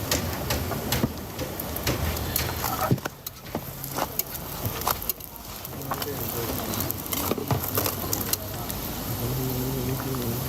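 Busy street ambience: background voices and passing vehicles, with scattered clicks and knocks throughout.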